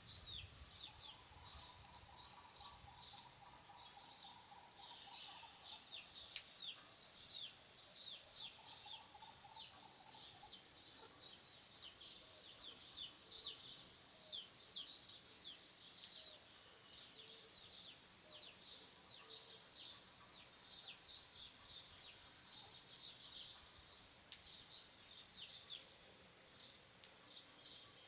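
Small birds chirping continuously in quick, high, falling notes. A faint steady tone comes in twice during the first ten seconds or so.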